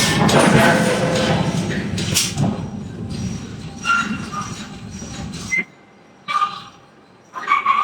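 Heavy forge-shop machinery running with a dense rumble and clatter that cuts off suddenly about five and a half seconds in. Short high chirps follow it.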